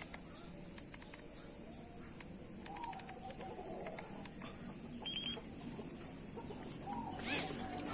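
Chickens clucking, with two drawn-out falling calls, over a steady high buzz of insects. A quick run of three short beeps comes about five seconds in.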